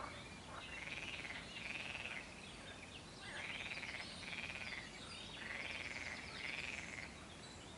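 Frogs calling: a buzzy, pulsed call that comes in pairs every two to three seconds, with faint bird chirps over it.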